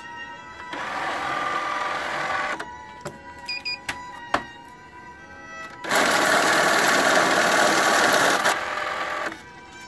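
Billcon NL-100 bill counter switched on with a click, its motor running for about two seconds at power-up, then a few clicks and two short beeps. About six seconds in it runs loud for around three seconds, feeding and counting a stack of banknotes, then stops.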